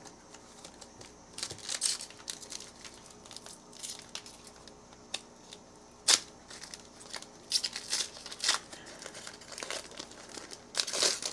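Foil trading-card pack wrapper crinkling and being torn open by hand, in irregular bursts with a sharp snap about six seconds in.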